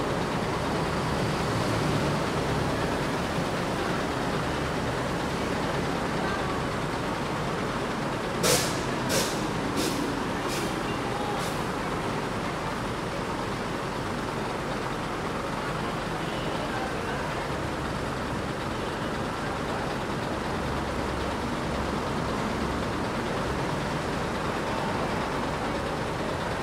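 Daewoo BH115 bus's diesel engine idling steadily. About a third of the way through come five short hisses in quick succession, each fainter than the last.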